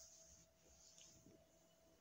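Near silence: faint scraping of a masher working soft roasted brinjal against a steel bowl, about twice a second, over a faint steady hum.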